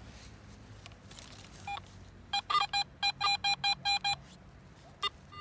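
Garrett AT Pro metal detector beeping as its coil passes over a silver coin in the dug-up soil: a quick run of short, high beeps, about five a second, lasting about two seconds, signalling the target.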